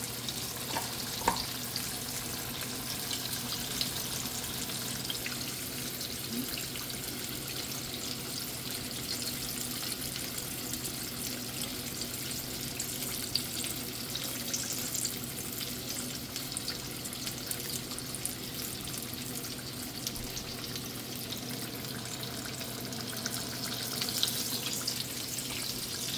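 Flour-coated fish frying in hot oil in a pot: a steady sizzle, with a single sharp knock about a second in.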